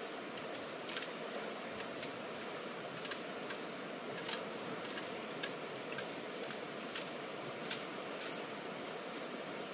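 Sharp, irregular clicks, about one or two a second, over a steady hiss.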